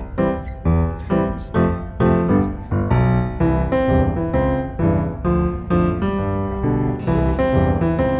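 Background music led by piano, with chords struck at a steady, even pace about twice a second.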